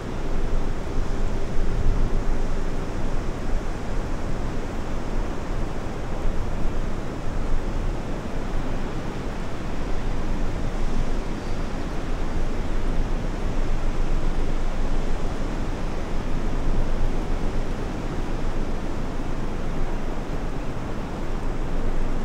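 Steady rush of ocean surf breaking on the beach, with wind rumbling on the microphone.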